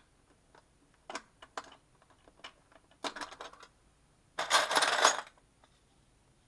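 Small metal tools and parts clinking as they are handled and set down: several light clicks, then a louder rattling clatter lasting about a second, just past the middle.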